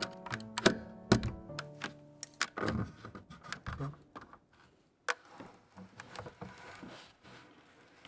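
Plastic keycaps being pulled off a mechanical keyboard's switches with a keycap puller: a run of sharp clicks over soft background music with plucked notes. The music ends about halfway, then there is one more sharp click followed by faint rustling.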